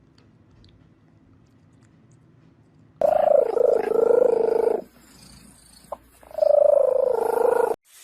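Cat yowling: two long, drawn-out calls with a wavering, falling pitch, each about a second and a half, starting about three seconds in, with a short click between them.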